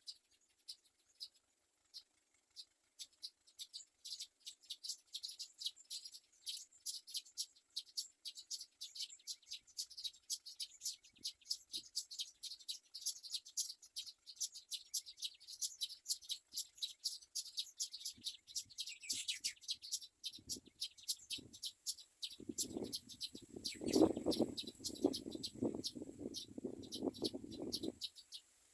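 Common myna nestlings begging: a dense run of rapid, high, short chirps, many a second. About three quarters of the way in, a louder, lower, rhythmic chattering joins them for several seconds.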